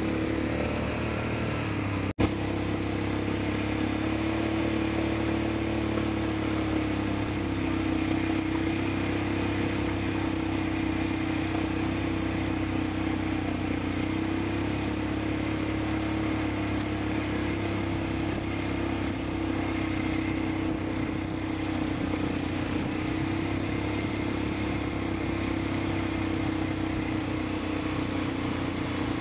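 ATV engine running at a steady cruising pace, a constant drone with no big revs. About two seconds in, the sound drops out for an instant and comes back with a click.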